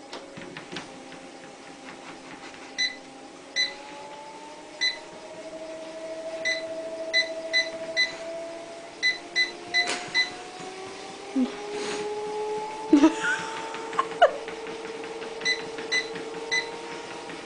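Motorised treadmill running, its motor whine climbing in pitch while short electronic beeps from its control panel sound in quick runs. A few sharp knocks a little past the middle are the loudest sounds.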